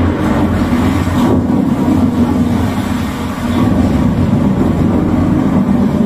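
Storm effects from a home-theater demo trailer played loud through a Sony HT-RT40 5.1 system: rain hiss over a steady deep rumble from the subwoofer, heard through the room.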